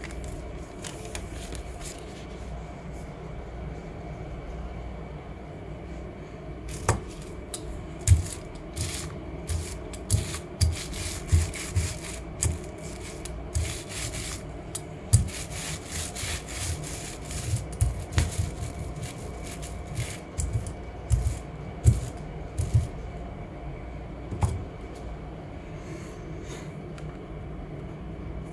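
A rubber brayer is rolled back and forth over scrap paper to roll off leftover blue paint, making a series of rubbing, rasping strokes about one or two a second. The strokes start several seconds in and stop near the end, over a steady low room hum.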